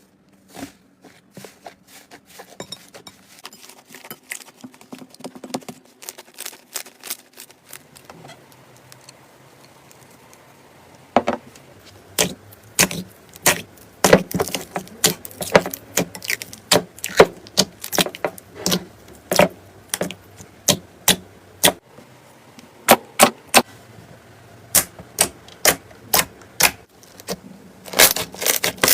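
Slime being squeezed and pressed by hand, giving sharp crackles and pops. They are faint and scattered at first, then from about a third of the way in they come loud, one or two a second, and thicken into a quick run near the end.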